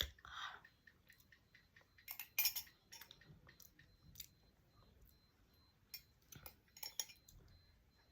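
Faint clinks and taps of kitchen utensils: a sharp click and a short scrape at the start, then scattered clicks in clusters about two seconds in and again near the end.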